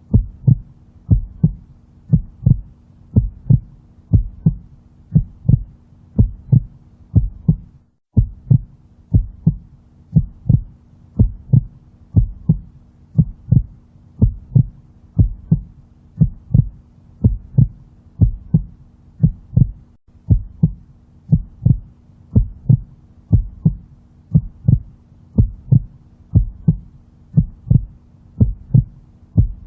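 Recorded heartbeat played as a steady loop: paired low lub-dub thumps, about one a second, over a faint steady low hum. The sound drops out briefly about eight seconds in.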